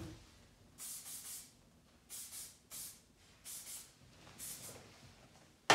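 Aerosol hairspray can spraying onto hair in about five short hissing bursts.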